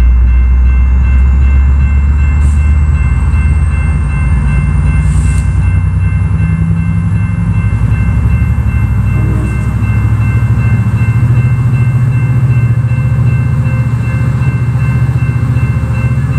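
Diesel locomotive running loud and close: a heavy low engine rumble that shifts up to a higher note about ten seconds in. Above it are a few faint steady high tones and a thin whine that slowly rises in pitch.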